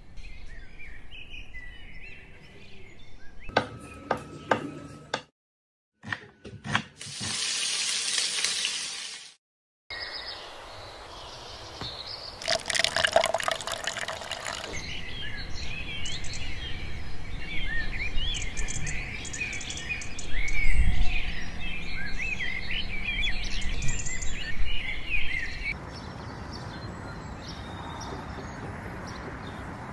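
A run of short kitchen sounds cut one after another: a few clicks and knocks, a brief hiss, then liquid batter pouring into a stainless steel bowl. About ten seconds of birds chirping follow.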